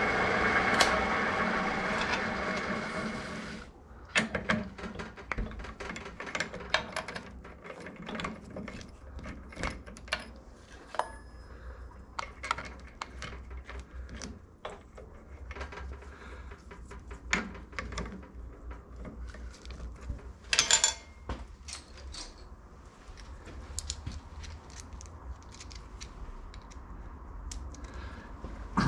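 Walker Turner drill press motor running steadily, shut off about four seconds in. Then scattered metallic clicks, clinks and knocks of tools and the workpiece being handled at the press.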